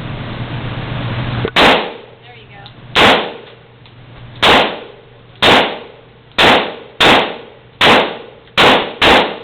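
Glock pistol firing nine shots, the shots irregularly spaced and coming quicker near the end, each a sharp crack with a short echo. A steady rushing noise comes before the first shot.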